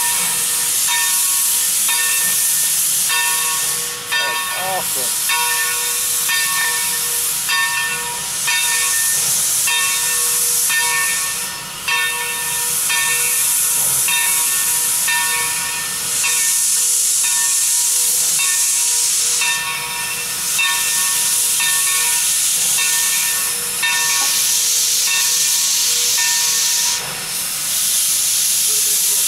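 Texas State Railroad #30, a 1917 Baldwin 2-8-2 steam locomotive, moving off slowly with its cylinder cocks open, hissing steam in loud surges as condensed water is blown out of the cylinders. Its bell rings steadily over the hiss, about three strokes every two seconds.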